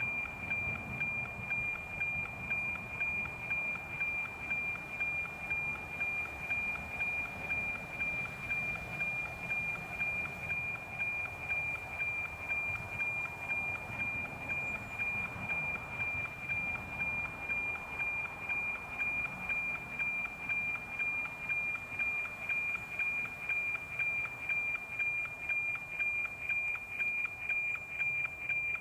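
NOAA 19 weather satellite's APT image signal received on 137.1 MHz through an RTL-SDR and SDR#: a steady high tone that pulses in an even tick-tock about twice a second, each beat one scan line of the picture being sent.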